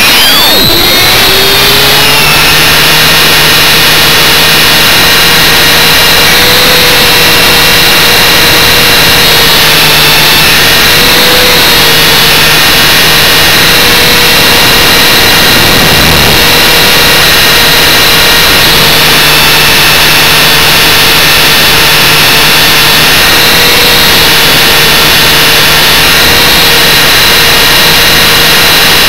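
Motor of a radio-controlled model running continuously, heard close up from on board: a loud, steady whine whose pitch wavers a little as the throttle changes.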